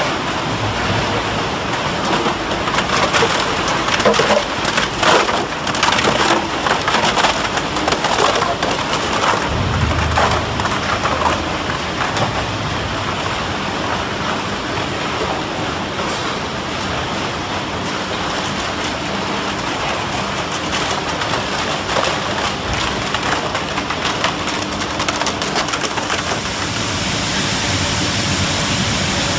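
Plastic bottle washing and recycling line running: a steady wash of machine and water noise, with many quick clicks and rattles in the first half.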